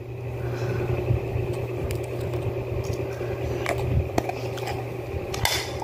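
Small plastic clicks and taps of a Play-Doh tub and its lid being handled, a few separate clicks, over a steady low hum.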